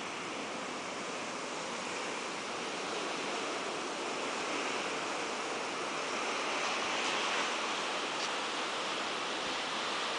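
Blizzard wind blowing, a steady hiss of wind and driven snow that swells for a while past the middle.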